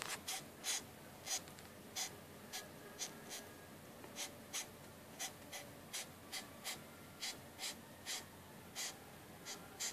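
Big black Christmas beetle hissing while handled: short, sharp hisses, about two a second in an uneven rhythm.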